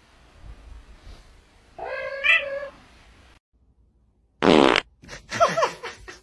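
A cat meows once. After a brief silence comes a loud, buzzing fart sound lasting about half a second, followed by a couple of short falling vocal sounds.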